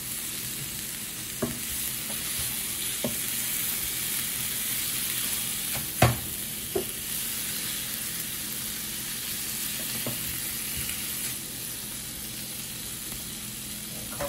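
Shrimp, bell pepper and scallions sizzling steadily in butter in a square pan, with a few sharp knocks against the pan, the loudest about six seconds in.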